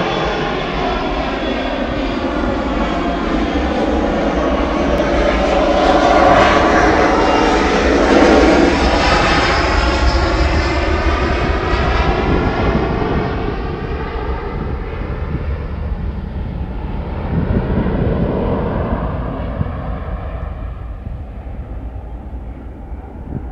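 Airplane taking off, its engine noise building to a peak about six to eight seconds in, then fading steadily as it climbs away, the hiss dying off first.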